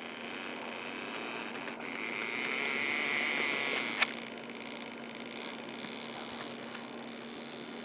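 Bachmann HO-scale 4-4-0 American locomotive with a three-pole motor running along the track: a steady motor hum with a running rattle. About two seconds in, a higher whine swells, then stops with a sharp click about four seconds in.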